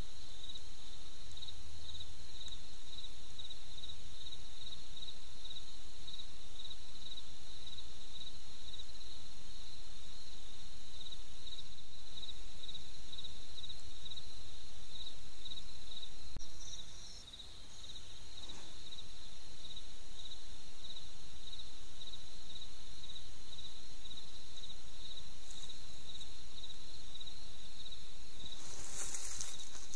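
Crickets chirping in a steady, regularly pulsing rhythm, with a brief drop in level about two-thirds of the way through and a short burst of noise near the end.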